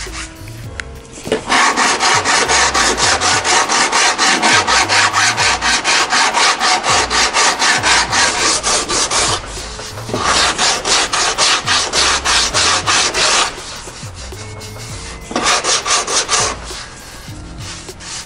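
Coarse 36-grit sandpaper on a hand sanding block rasping back and forth over a cured fiberglass patch on a carbon racing-shell hull, at about five strokes a second, in three bouts: a long one, a shorter one, and a brief one near the end. The sanding takes the glass cloth at the patch's edge down flush with the hull.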